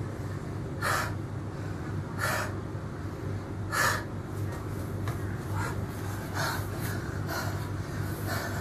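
A man breathing hard with heavy, forceful breaths in the middle of a long set of burpees, worked near to failure. The breaths come about every second and a half at first and quicken from about halfway.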